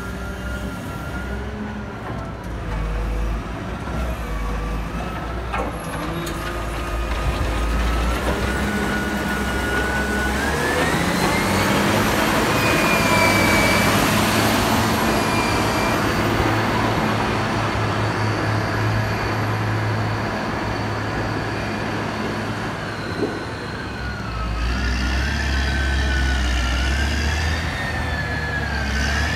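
Caterpillar motor grader's diesel engine running as the machine drives past close by, loudest about halfway through, with a whine that rises and falls in pitch as it works.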